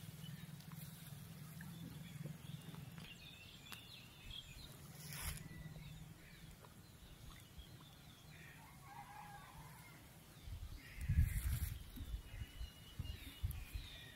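Quiet outdoor ambience beside a pond, with faint scattered bird chirps and a short click about five seconds in. Near the end, a run of low thumps for about three seconds.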